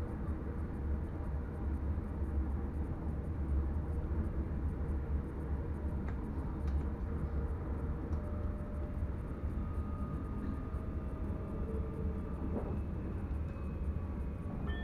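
Steady low rumble of an NS Sprinter Lighttrain electric multiple unit running along the track, heard from inside the driver's cab. Faint steady tones come in during the second half.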